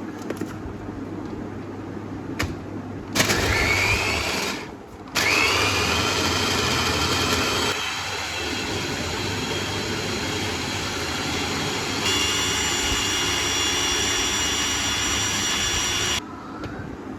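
Electric mixer-grinder blending a wet chutney of mint and coriander. It gives a short pulse of about a second and a half, then after a brief stop a run of about eleven seconds, with the motor's whine rising as it comes up to speed each time.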